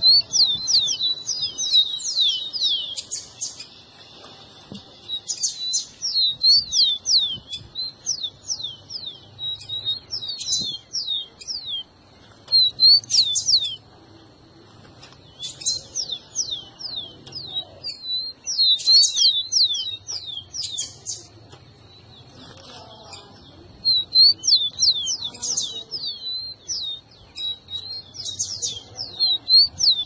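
Rufous-collared sparrows (tico-tico) singing: clusters of sharp, quick whistled notes that each slide downward, in phrases with short pauses between them.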